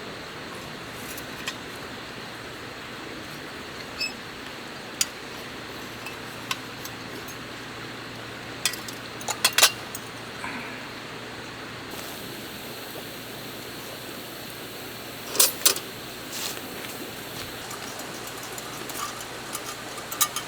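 Scattered sharp metallic clinks and taps of cookware and utensils being handled, a few ringing briefly, over a steady background hiss. The loudest clinks come in two clusters, about halfway through and again about three quarters of the way in.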